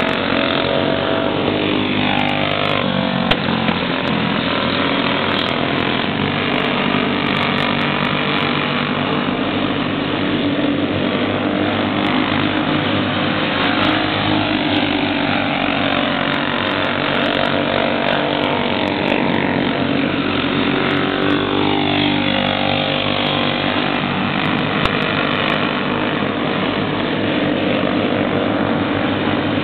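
Several small junior champ racing kart engines running at speed in a pack, their pitch rising and falling repeatedly as the karts accelerate and lift through the corners.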